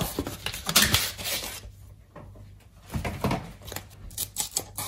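Plastic vacuum pack of sliced smoked salmon being opened and handled, the film crinkling and rustling about a second in and again near three seconds, with a few light clicks near the end.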